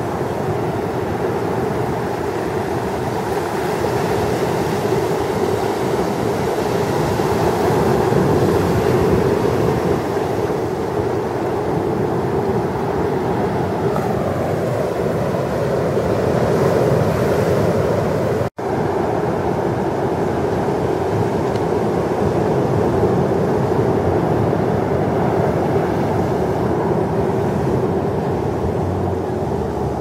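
Heavy ocean surf from large storm-driven waves, a steady roar that rises and falls in level as the waves break. The sound drops out for an instant about two-thirds of the way in.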